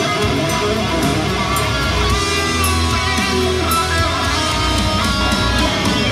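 Heavy metal playing on an Acacia Romulus electric guitar through a Line 6 Helix modeller, with lead notes that bend in pitch over a steady low end.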